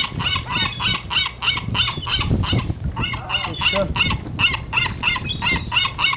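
Juvenile gull calling over and over, a rapid string of high, repeated cries at about four a second with a short break about three seconds in. This is the begging call of a young gull.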